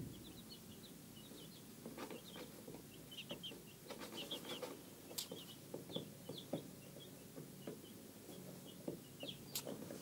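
Easter Egger chicks peeping faintly: short, high cheeps in small clusters, with a few soft clicks from handling.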